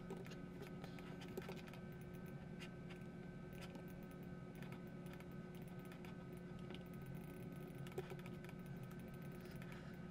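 Faint, irregular clicks of a computer mouse being worked while sculpting, over a steady low hum.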